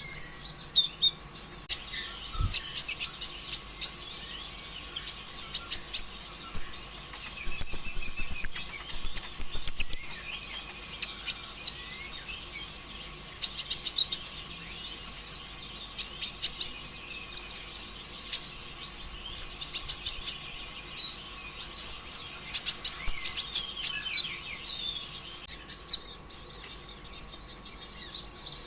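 Kolibri ninja sunbird (konin ijoan) singing a fast, erratic 'konslet' song: rapid high chirps and ticking trills in bursts, with a louder run of high buzzy notes around the middle. A faint steady hum sits underneath.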